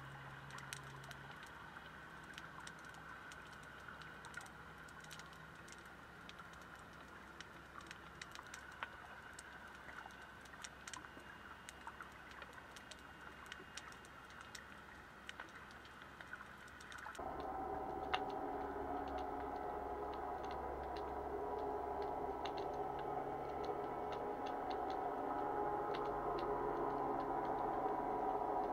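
Underwater sound picked up by a camera on the seabed: faint, irregular clicking and crackling over a low hiss. About two-thirds of the way through, a louder steady drone with several tones comes in suddenly and continues.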